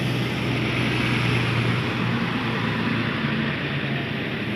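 Aviation fuel tanker truck's engine running with a steady low hum, slowly getting fainter.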